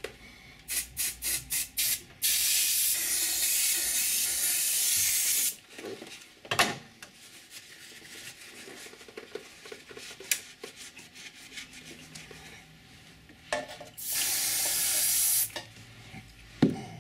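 Aerosol switch cleaner (Servisol Super 10) sprayed onto a jukebox's selection switch contacts: a run of short spurts, then a long hiss of about three seconds, and later another long blast of about a second and a half. A few sharp clicks or knocks fall between the sprays.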